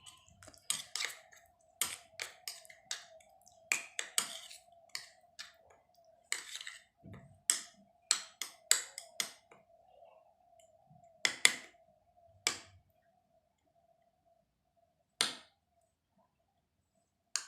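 A spoon clinking and tapping against a small bowl while stirring honey and grated ginger together: irregular clicks, several a second, that thin out after about 13 seconds to one or two last taps.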